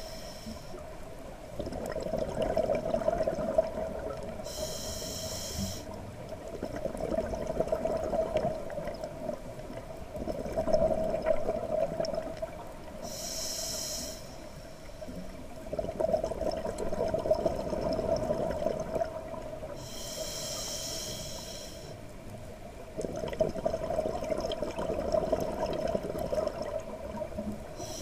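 Scuba diver breathing through a regulator, heard underwater: a short hissing inhale every seven or eight seconds, between them exhaled air bubbling out in gurgling bursts of a few seconds each.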